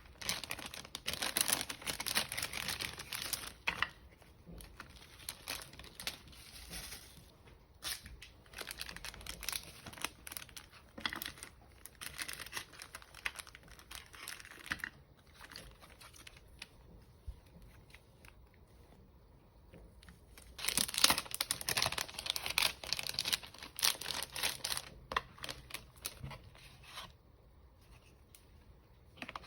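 Packaging being crinkled and torn open by hand in irregular bursts, loudest in the first few seconds and again about two-thirds of the way through.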